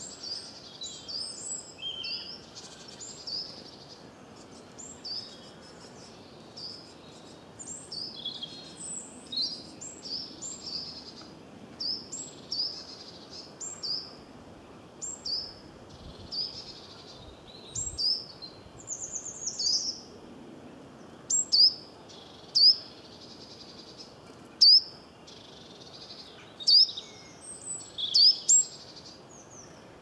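Small songbirds chirping and calling: a run of short, high notes about once a second, with several louder, sharp calls in the second half.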